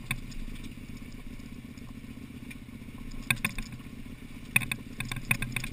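Big KTM adventure motorcycle's V-twin running steadily at low revs while rolling down a loose rocky track. Sharp knocks and clatter from the bike jolting over rocks come once about three seconds in and then in a quick cluster near the end.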